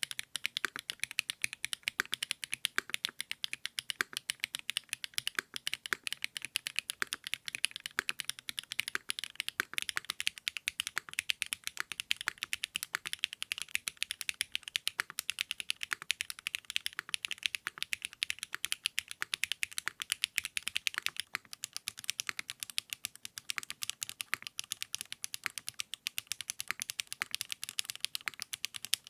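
Continuous fast typing on a custom mechanical keyboard fitted with 80Retros x HMX KD400 switches: a steady, dense stream of crisp key clacks, several a second.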